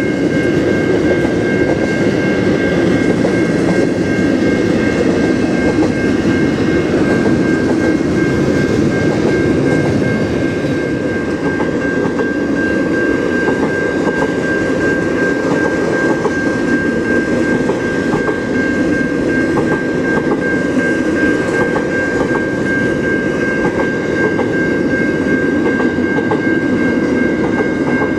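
A train rolling past, its wheels clacking over the rail joints, with a steady high-pitched tone held throughout.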